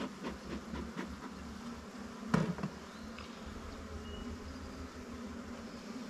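Honey bees buzzing at an opened hive, a steady hum from many bees in flight. A single sharp knock sounds about two seconds in.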